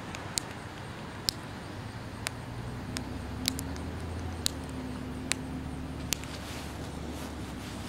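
Paintballs dropped one after another onto hard dirt ground, each landing as a sharp click or pop, about eight of them roughly a second apart. Many of the fragile shells break open on impact. A low steady hum comes in about three seconds in.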